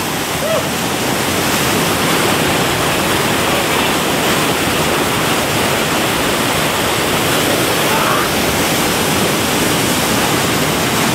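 River whitewater pouring down a rocky cascade: a loud, steady rush.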